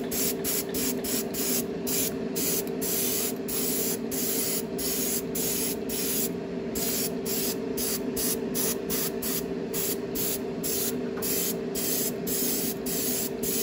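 Iwata Neo dual-action airbrush spraying clear dull coat: a continuous hiss with brief breaks about two or three times a second, over a steady low hum.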